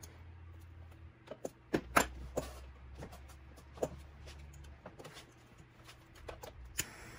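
Scattered sharp clicks and taps of a tenor saxophone's metal keywork and repair tools being handled, the loudest pair about two seconds in. They come while the C-sharp key is being adjusted so its pad sits square on the tone hole.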